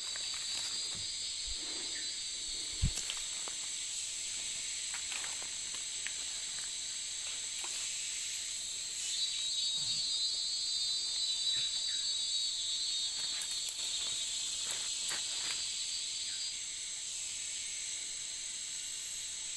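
A chorus of forest insects droning steadily at a high pitch, with a rapid trilling layer that swells in about half a second in and again from about nine seconds in, fading out a few seconds before the end. Scattered faint clicks and taps sound underneath.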